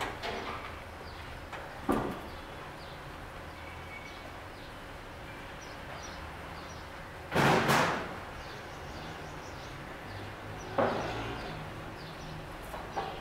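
Steel reinforcing bar and tying wire being handled on a steel-topped workbench: a few separate metal knocks, the loudest a longer clatter about halfway through.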